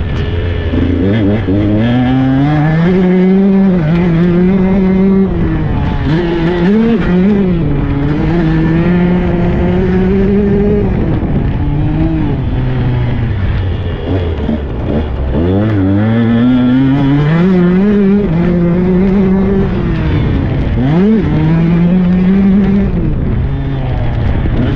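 Tuned Husqvarna 125 cc two-stroke dirt bike engine being ridden hard, revs climbing and dropping over and over with throttle and gear changes. It falls to low revs about halfway through and then climbs again.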